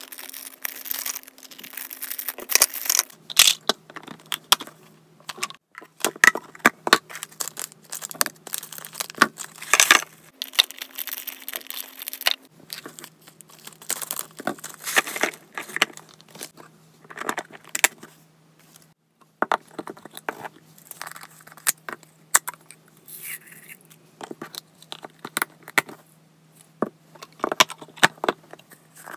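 Irregular rustling, crinkling and clicking of things being handled, like packaging and small items knocked together, over a faint steady hum.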